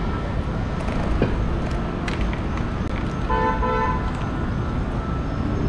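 Steady city street traffic, with a vehicle horn beeping twice in quick succession about three and a half seconds in.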